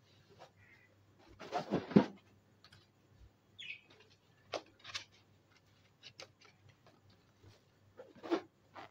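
Latex balloons being handled and shifted on a pile of balloons: short rubbery squeaks and rubs scattered through, with the loudest cluster about two seconds in.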